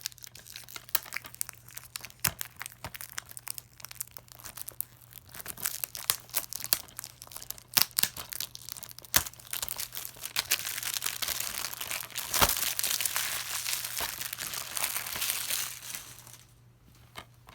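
Plastic wrapping on a DVD case being crinkled and torn off. It starts as scattered crackles, becomes a dense continuous crinkling in the second half, then stops shortly before the end.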